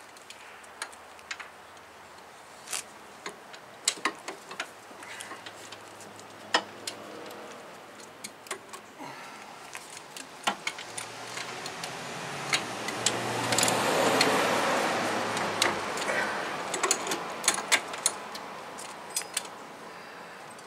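Hand tools and metal brake parts clinking and tapping irregularly while a rear brake caliper and its bracket bolts are worked on. In the middle, a broader rushing sound swells for a few seconds and then fades.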